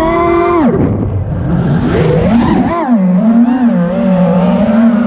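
FPV racing drone's motors whining. The pitch falls sharply just under a second in, climbs again around two to three seconds, then holds steady.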